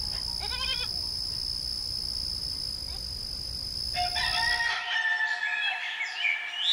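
Steady chirring of crickets, then about four seconds in a rooster crows, followed by brief bird chirps near the end: a dawn sound effect.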